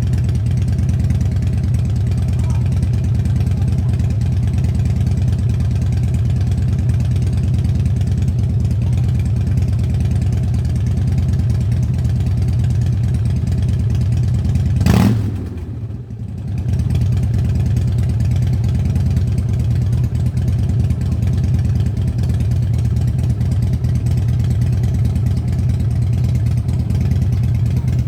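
Motorcycle engine idling steadily with a deep rumble, given one short blip of the throttle about halfway through; the revs dip briefly afterwards, then it settles back to a steady idle.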